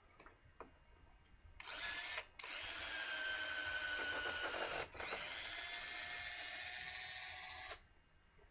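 Cordless drill running in three trigger pulls, a short one and then two longer ones, its motor pitch sagging slightly as it runs: the battery is low.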